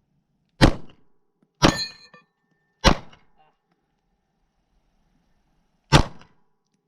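Four gunshots, the first three about a second apart and the fourth after a pause of about three seconds; the second is followed by a short metallic ring, a steel target being hit.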